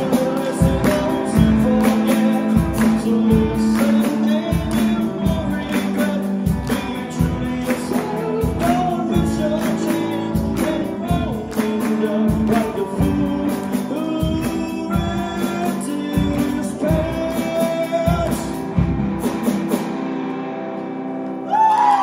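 Live rock band of electric guitar, drum kit and tambourine playing an instrumental passage with a steady beat. The drumming stops about three seconds before the end, leaving a held, fading chord, and the audience starts applauding and cheering just before the end.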